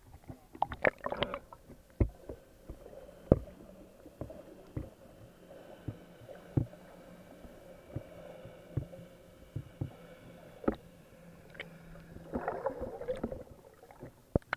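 Muffled underwater sound through an action camera's waterproof housing: scattered sharp knocks and clicks, with bursts of bubbling and splashing about a second in and again near the end as snorkelers kick their fins. A faint steady hum runs underneath through the middle.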